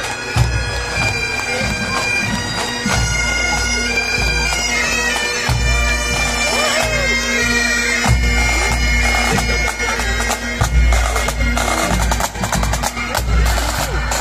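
Bagpipes playing a tune over their steady drones, with drum strokes joining in more often in the second half.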